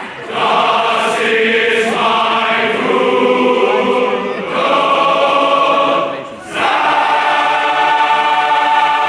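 Large men's choir singing; about six seconds in the voices break off briefly, then come back on one long held chord.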